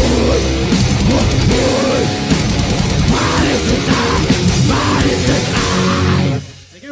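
Grindcore band playing live: electric guitar, drums and vocals in a dense wall of sound, which stops abruptly about six and a half seconds in as the song ends.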